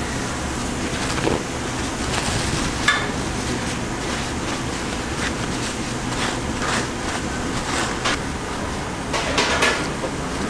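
Cooking sounds at a street-food burger stall: scattered clinks and knocks of metal utensils and cookware over a steady hum of a fan, with a cluster of knocks near the end.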